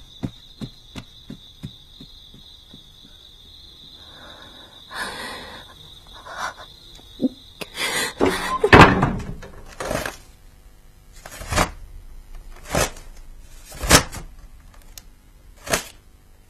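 A run of quick, evenly spaced clicks dies away at the start over a faint steady high tone. After that come scattered hard knocks and thunks, the loudest about a second apart in the second half.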